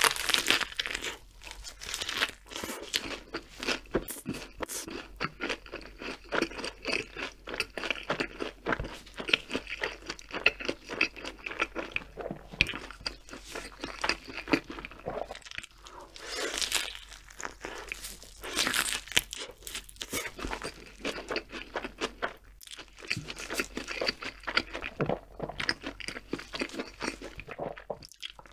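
A crispy fried chicken burger being bitten and chewed close to the microphone, ASMR-style: a dense run of crunches, pausing briefly between bites.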